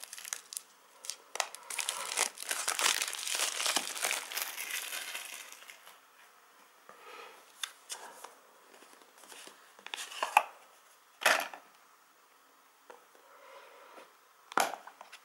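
Thin plastic shrink wrap being peeled and crinkled off a small cardboard box, with dense crinkling for the first five or six seconds. After that come scattered crinkles and three sharp clicks, the last near the end, as a clear plastic case is handled.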